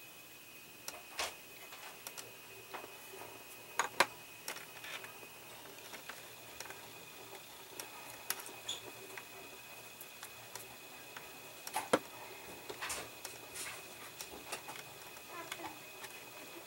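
Scattered small clicks and taps of hands and a small metal tool handling a plastic model dashboard and its wiring, the sharpest knocks about four seconds in and again about twelve seconds in. A faint steady high whine sits underneath.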